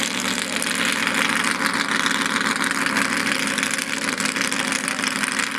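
A mud-run truck's engine running steadily, with no rise or fall in pitch.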